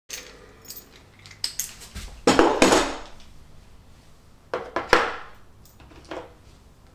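Metal hand tools and parts clinking and clattering as they are picked up and handled. There are several separate bursts, the loudest about two seconds in, another around five seconds, and a smaller one near six seconds.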